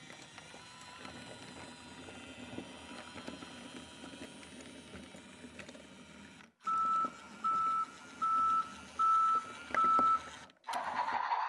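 BRIO Smart Tech battery-powered toy train running on wooden track, a low motor whirr with light clicks of the wheels. It is followed by five evenly spaced electronic beeps from the toy, and near the end a louder hiss-like sound effect.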